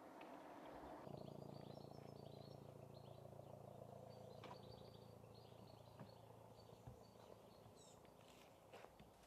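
Near silence: faint birds chirping, over a low steady hum that sets in about a second in.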